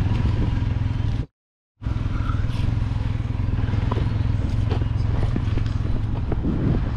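Three-wheeled motorcycle's engine idling steadily, with a brief complete dropout a little over a second in.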